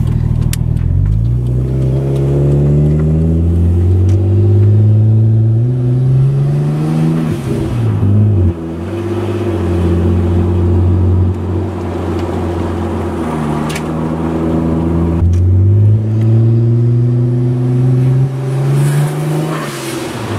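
Nissan Skyline's engine, running on newly fitted spark plugs, heard from inside the cabin as the car is driven. Its pitch rises slowly under acceleration, drops sharply about eight seconds in, holds, then climbs again from about fifteen seconds in and drops once more near the end.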